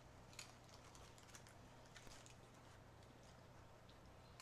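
Near silence with a few faint, short clicks from eating: chewing and mouth sounds.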